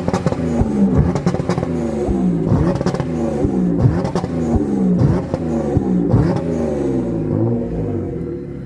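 Car engine and exhaust sound effect, revving over and over with a falling pitch sweep about once a second and sharp pops in between. It grows quieter near the end.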